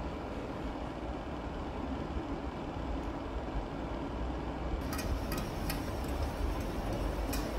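Tap water running steadily into a stainless steel sink as vegetables are rinsed and rubbed under it by hand, with a few light clicks and knocks from about five seconds in.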